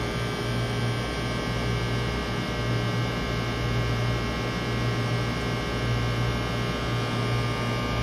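Steady electrical mains hum, low and unchanging, with faint steady higher tones above it.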